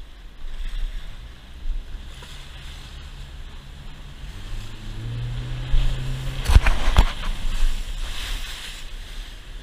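A fishing boat running at speed through rough sea, with wind buffeting the microphone and the engine note rising about halfway in. The hull slams twice onto waves, two loud bangs about half a second apart, throwing spray over the bow.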